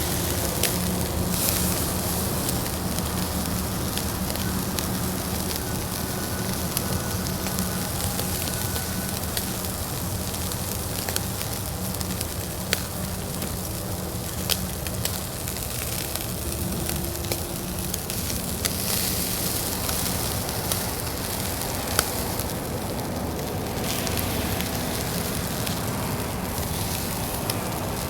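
Fire burning in a Uniflame Fire Grill fire stand: a steady crackling hiss with a few sharp pops scattered through it, over a faint low hum.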